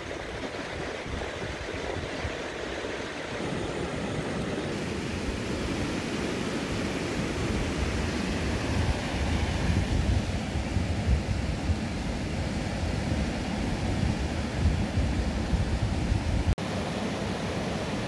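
Steady rushing of a fast mountain river. From about eight seconds in, a louder, uneven low rumble lies over it, with a brief dropout near the end.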